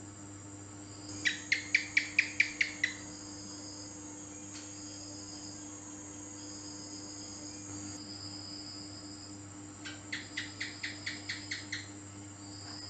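House gecko (cicak) calling twice, each call a quick run of about nine or ten sharp chirps. Fainter high insect trilling goes on behind.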